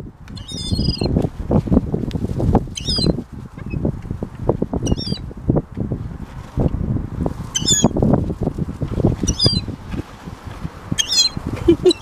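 Gulls giving short high calls about seven times, a few seconds apart, while they swoop close for food. Under them is a louder low buffeting noise.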